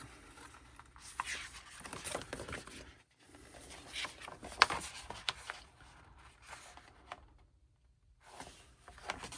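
Paper rustling and crinkling with light taps and clicks as a folded poster is handled and opened out, the loudest a sharp click about halfway through, then a brief pause before the rustling resumes.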